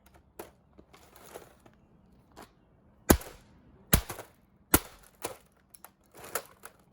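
Hard plastic housing of a cheap robot vacuum cleaner being broken apart: scattered clicks and cracks, with three loud sharp blows or snaps a little under a second apart near the middle.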